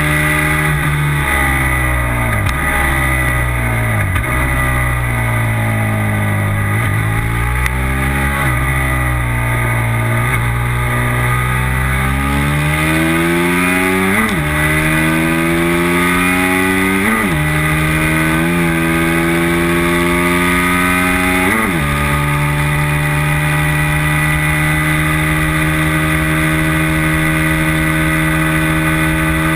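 Racing motorcycle engine heard from a tail-mounted onboard camera at speed. For the first half the revs wander lower as the bike slows and works through a corner, then it accelerates hard through four upshifts, the pitch climbing and snapping down at each shift, before holding a steady high pitch on the straight, with wind rushing over the microphone.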